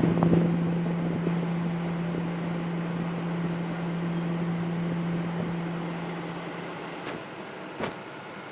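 Coil whine from the chokes of a Palit GeForce GTX 780 Ti graphics card, whistling hard: a steady tone over a rushing hiss that fades and stops about six and a half seconds in. Two short clicks follow near the end.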